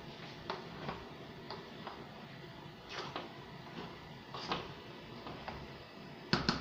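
A spoon tapping and scraping against a pot while cooked basmati rice is stirred: light, irregular clicks, with two sharper knocks close together near the end.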